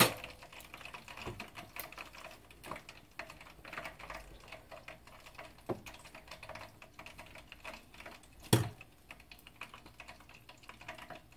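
Metal tongs handling crisp, deep-fried battered flounder pieces on a wire cooling rack. There is faint, dense crackling and ticking throughout, with two sharper clicks, one about halfway through and a louder one about three-quarters of the way in.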